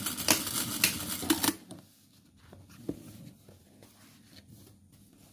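A sewing machine running fast, stitching a seam in curtain fabric, then stopping about a second and a half in. Soft rustling of the fabric panel follows, with one light knock.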